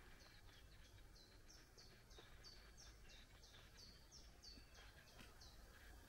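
A small songbird singing faintly: a steady series of short, high, down-slurred notes, about three a second, that stops near the end, over a low outdoor background hum.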